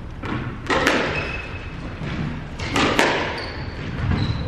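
Squash ball knocking twice on a squash court, about a second in and again near three seconds, each knock sharp and briefly echoing. Short sneaker squeaks on the wooden floor come in between.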